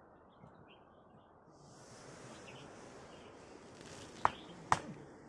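Two sharp strikes of a tool, about half a second apart, near the end. They sit over faint outdoor background that gains a high, steady hiss about two seconds in.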